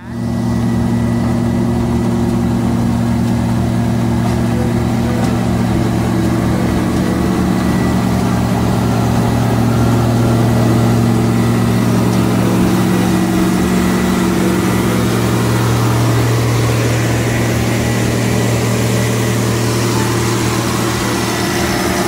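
Caterpillar CS-563C single-drum road roller's diesel engine running steadily at work, a steady engine note over a fast low pulsing.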